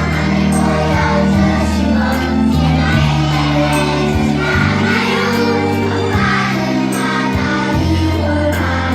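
A group of young children singing along to a recorded song accompaniment with a steady beat and held bass notes.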